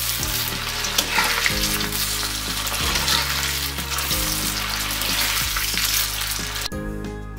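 Batter-coated cauliflower florets deep-frying in hot oil in a kadai, sizzling steadily while a metal spatula turns them. The sizzle cuts off suddenly near the end, leaving only background music.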